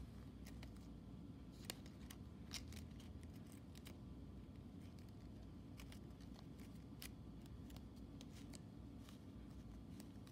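Origami paper crinkling and crackling faintly as it is folded and creased by hand, in scattered small clicks, two a little sharper about two seconds in, over a low steady hum.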